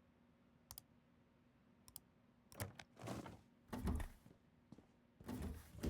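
Two quick pairs of sharp clicks, then louder bursts of clattering and dull thuds, as of hard objects being handled and set down. A faint steady low hum runs underneath.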